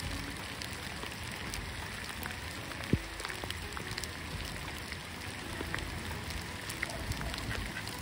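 Rain falling steadily, with many small raindrop ticks and one sharper tap about three seconds in.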